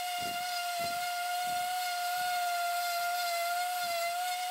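DeWalt random orbital palm sander running on flat wood boards: a steady high whine with faint low scrubbing strokes underneath as it is moved over the surface.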